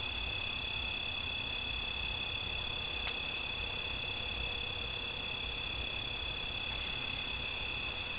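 Steady nighttime chorus of insects: a continuous high trill at two pitches, unbroken throughout, over a faint low rumble.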